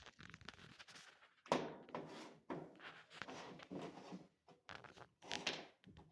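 Plastic washer agitator dogs being pulled off the agitator's cam: an irregular series of scrapes, rattles and knocks of plastic parts being handled.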